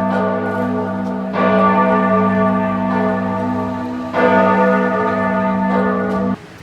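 Large church bell of Giotto's bell tower tolling slowly, struck twice about three seconds apart, each stroke ringing on with a long low hum. The sound cuts off suddenly near the end.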